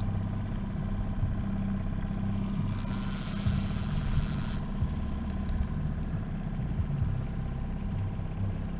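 Boat's outboard motor running steadily at low trolling speed, with a brief hiss about three seconds in.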